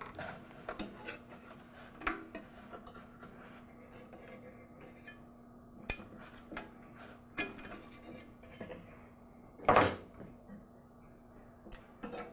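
Light metallic clicks, taps and scraping as hands and needle-nose pliers unhook the linkage rods from a lawn mower carburetor, with one louder knock about ten seconds in, over a faint steady hum.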